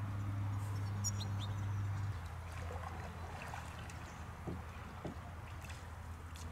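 Wooden canoe paddle dipping and pulling through calm river water, with soft splashes and drips, over a steady low rumble that drops about two seconds in. A few short bird chirps come through.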